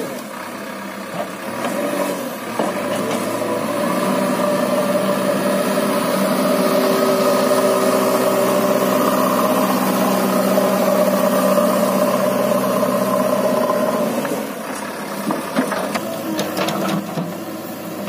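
JCB 3DX backhoe loader's diesel engine running under load as the machine works the mud, rising a couple of seconds in and holding steady, then dropping back to a lower level near the end, when a few clanks are heard.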